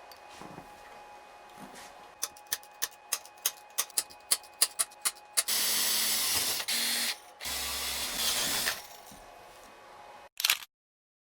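Aerosol spray can being shaken, its mixing ball rattling in about a dozen clicks at roughly four a second, then two sprays of about a second and a half each. A short sharp knock near the end.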